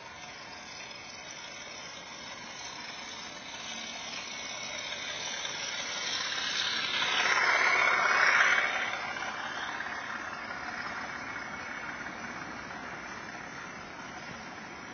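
Model OO-gauge freight train running past close to track level: the locomotive's small electric motor whirring and its wheels running on the rails. The sound builds to its loudest about halfway through as the locomotive passes, then fades as the wagons and brake van roll by.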